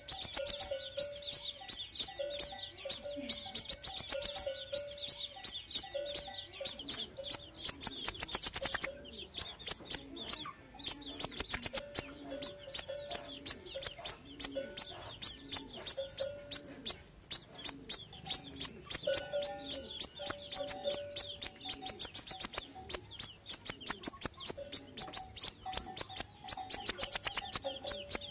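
Sunbird song played as a lure call: fast runs of sharp, high-pitched chips repeated over and over, with a short break about nine seconds in. Fainter, lower short notes sound underneath.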